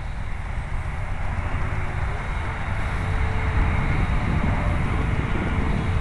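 Wind buffeting the microphone, with the faint, steady whine of a foamboard RC plane's brushless electric motor and propeller high overhead, stepping up slightly in pitch about two seconds in.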